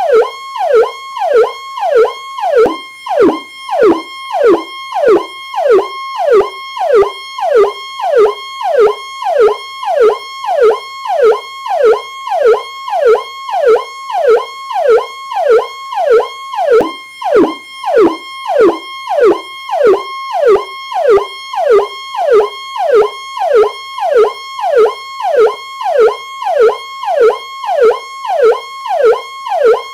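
Electronic police siren sounding its Powercall tone: a held high note that drops sharply in pitch, repeating about one and a half times a second without a break.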